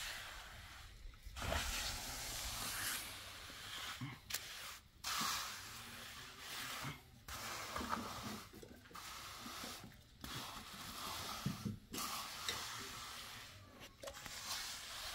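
Hand trowel sweeping over wet concrete: a run of scraping, hissing strokes with short pauses between them as the surface is smoothed.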